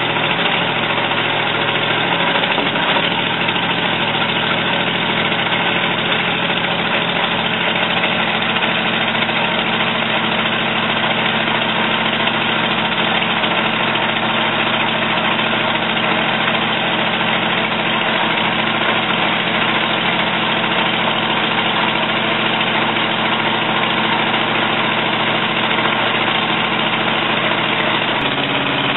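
Small engine of a homemade tracked dumper running steadily at an even speed, its note shifting slightly near the end.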